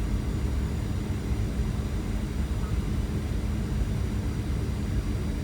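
Steady low rumble of jet airliner cabin noise from inside the cabin: engines and airflow, with a faint steady hum under it.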